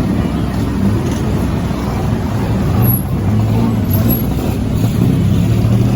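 Street traffic, with a nearby motor vehicle engine running steadily and growing louder about halfway through.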